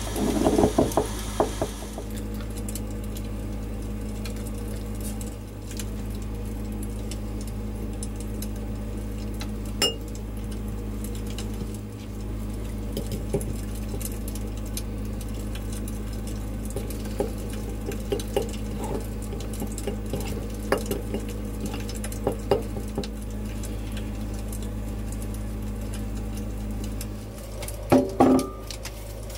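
A spoon stirring and scraping in a small glass bowl, with scattered light clinks, over a steady low hum. Louder knocks come in the first couple of seconds and again near the end.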